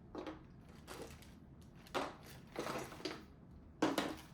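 Parts being handled and set down on a workbench: a series of short, irregular hard clacks and knocks, the sharpest two about two seconds in and near the end.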